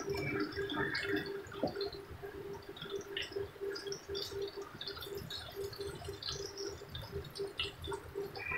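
Batter-coated eggplant strips deep-frying in hot oil in a pan, bubbling with scattered crackling pops as a wooden spatula turns them.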